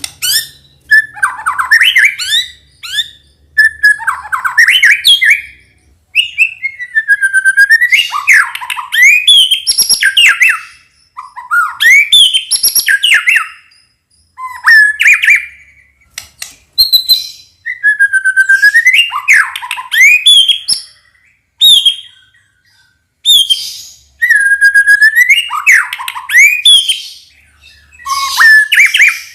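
White-rumped shama (murai batu) in full song: loud, varied phrases of clear whistles, sweeping notes and rapid chattering trills, one after another with short pauses, a song stuffed with 'isian', the other birds' calls it has learned to mimic.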